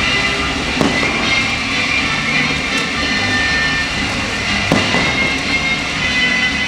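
Aerial fireworks going off in a dense barrage: a continuous rumbling crackle with sharp bangs about a second in and again near five seconds in.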